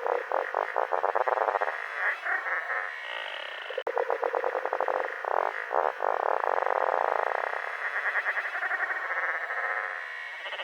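Electronic sound effect made by time-stretching an audio sample with Ableton's warp mode: a stuttering texture of fast pulses, squeezed into a narrow middle band with no bass, like sound through a small radio.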